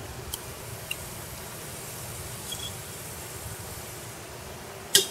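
Samosas frying in oil on very low heat: a steady soft sizzle with a few faint crackles, and one sharp click near the end.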